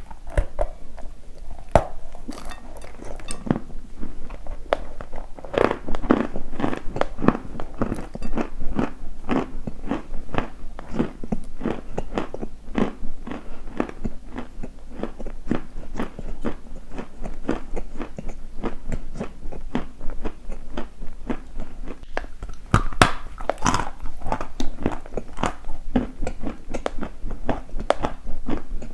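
Close-miked crunching: repeated crisp bites and chewing of something hard and brittle, in quick irregular crunches, with a louder cluster of crunches about 23 seconds in.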